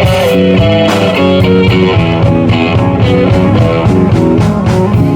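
Live blues-rock band playing an instrumental passage: an electric guitar plays a lead line of quick stepping notes over bass and drums.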